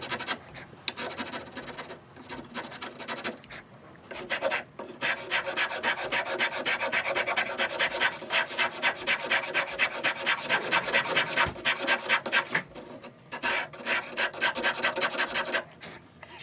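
Large coarse rasp filing a wooden shotgun stock in rapid back-and-forth strokes, played at double speed, roughing the sawn comb cutout level. The strokes are light for the first few seconds, then louder at about three to four a second, with a short break about two-thirds through.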